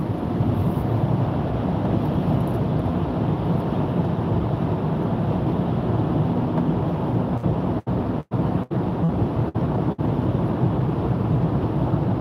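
Steady low rumble of a car's road and engine noise, heard from inside the cabin while driving through a road tunnel. Between about eight and ten seconds in, the sound cuts out for split seconds several times.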